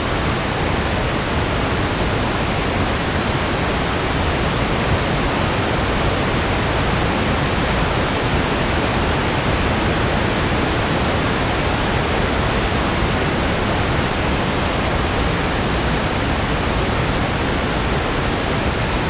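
Steady, even rushing noise with no gusts or swells: a synthetic blizzard-wind sleep sound built in Audacity, close to pink noise.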